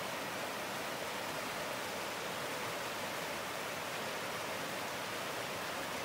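Small rocky woodland brook tumbling over stones in little cascades: a steady, even rush of water.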